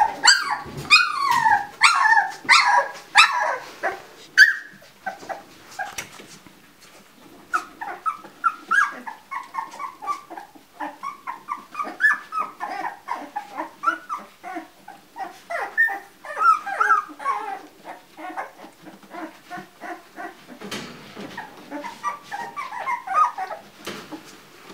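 A litter of two-week-old Labrador puppies whimpering and squealing: many short, high squeaks that rise and fall in pitch, loudest in the first few seconds and then going on more softly.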